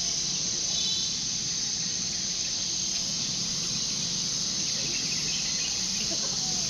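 Steady, unbroken high-pitched drone of a tropical forest insect chorus.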